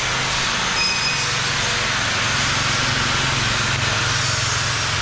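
Metalworking shop machinery running steadily: a constant hiss with a low hum underneath.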